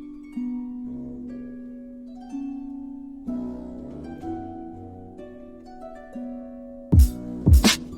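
Beat music: a harp-like plucked melody with held notes that change about once a second, then three heavy bass-drum hits come in near the end.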